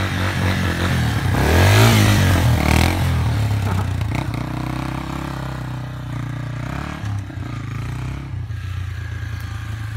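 Yamaha TT-R230 dirt bike's single-cylinder four-stroke engine revving hard through a wheelie, its pitch rising and falling, loudest in the first three seconds. It then runs more steadily at lower revs as the bike rides off across the grass.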